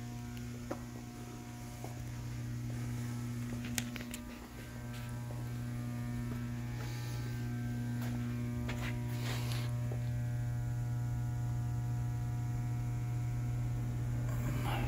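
Steady electric hum, low-pitched with a stack of overtones, from the Wysong 1010 mechanical power shear's 10-horsepower three-phase motor running while the shear is not cycling. A few faint clicks.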